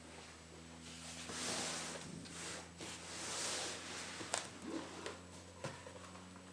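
A cloth-covered board book box being handled: hands rubbing and sliding over the cloth, then a sharp tap a little over four seconds in as the box is opened and its sides drop back, followed by a few lighter taps.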